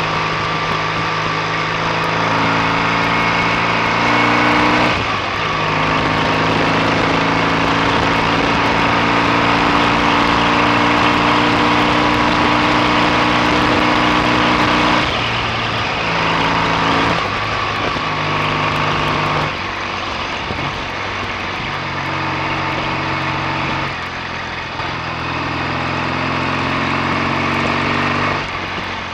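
BSA A65 650 parallel-twin motorcycle engine running under way. Its note holds steady for long stretches and shifts pitch in steps several times as the revs change.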